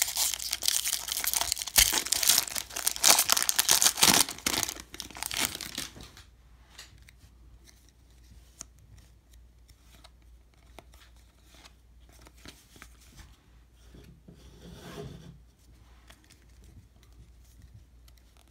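Foil wrapper of a baseball-card jumbo pack being torn open and crinkled, loud for about six seconds, then stopping. After that, only faint soft ticks as the cards are slid off the stack one by one.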